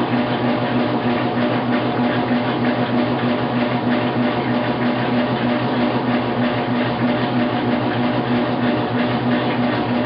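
Washing machine running: a steady machine hum with several held tones and a hiss above them, unchanging throughout.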